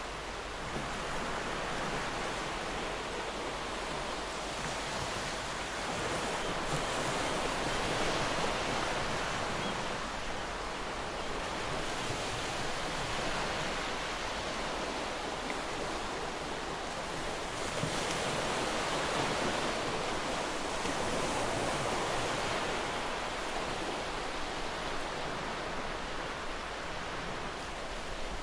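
Sea waves washing in: a steady rush of surf that swells and eases every few seconds.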